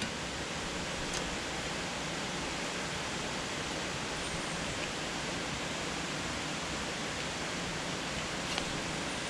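Steady, even rushing noise with no rise or fall, and a couple of faint clicks.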